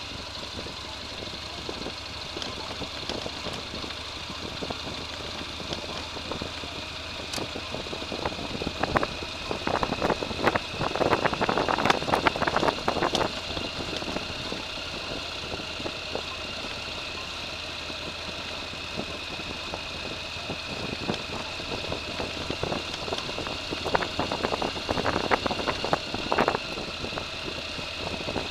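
An engine running steadily at idle, with louder crackling and rattling about nine to thirteen seconds in and again near the end.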